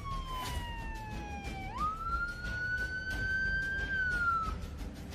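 Emergency vehicle siren wailing in slow sweeps: a long falling tone, then a sharp jump up into a slowly rising one that drops again and cuts off about four and a half seconds in, over a low rumble of street traffic.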